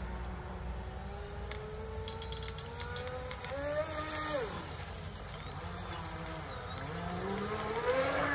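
Atomic 27.5-inch RC catamaran's water-cooled brushless motor whining as the boat runs on the water. Its pitch climbs slowly, jumps up and then drops about four seconds in, and climbs again near the end as the throttle changes.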